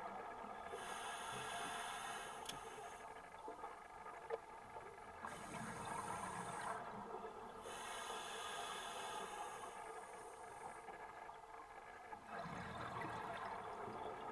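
Scuba diver breathing through a regulator underwater: a hiss with each inhale that comes and goes every few seconds, alternating with a low bubbling rush of exhaled air.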